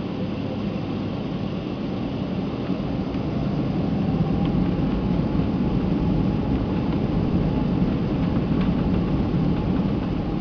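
Jet engines of a Boeing 767 heard from inside the passenger cabin while the airliner taxis: a steady rumble and hiss with a faint whine, growing somewhat louder about four seconds in.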